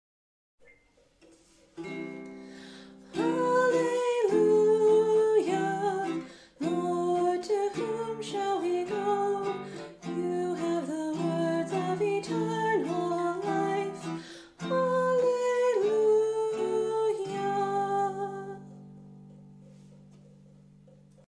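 A woman sings a short verse, accompanied by her own strummed ukulele. A chord comes in about two seconds in and the singing starts about a second later. It ends on a ukulele chord that is left to ring and fade away.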